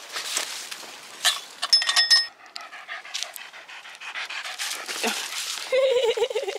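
Small dog panting quickly, with rustling and crunching over dry leaves and pine needles. There is a loud clatter of sharp clicks about two seconds in, and a short wavering whine near the end.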